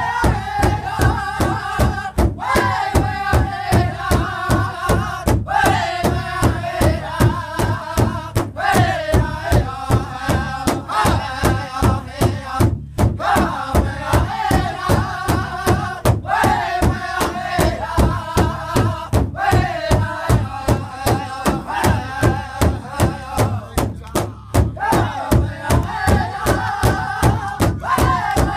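Northern-style powwow drum group performing an intertribal song: several men beat one large shared bass drum together in a steady, even beat while singing high-pitched phrases in unison.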